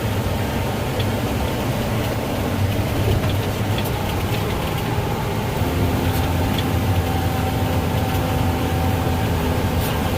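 Case axial-flow combine running, heard from inside the cab as a steady low drone. A faint steady whine joins it a little over halfway through.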